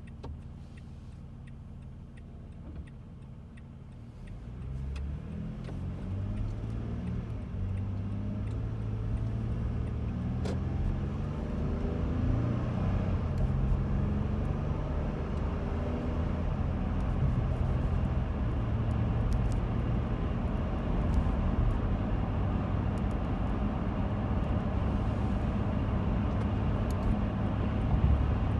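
Inside the cabin of a 2017 Toyota Sienna minivan: its V6 idles quietly at a stop, then about four seconds in the van pulls away and accelerates. The engine pitch climbs and drops back at each gear change while road and wind noise build steadily with speed, a noise the owner considers excessive.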